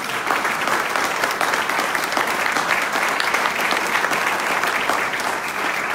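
Audience applauding: many hands clapping, steady and loud.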